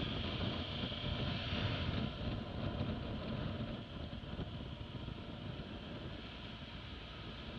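Motorcycle engine running at low revs under a steady rush of wind noise on the microphone, easing off as the bike slows through a bend. A high hiss fades after about two seconds, and the overall level drops a little about four seconds in.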